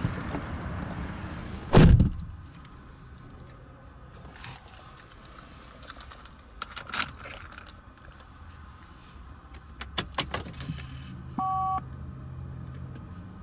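A BMW E46's driver's door pulled shut with one heavy thunk about two seconds in, followed by key clicks at the ignition. About eleven seconds in, the ignition is switched on: a short two-tone chime sounds over a low steady hum that lasts about two seconds.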